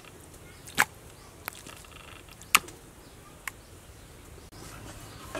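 Four scattered sharp knocks on a wooden chopping block, the clearest about a second in and again about two and a half seconds in, over a quiet background.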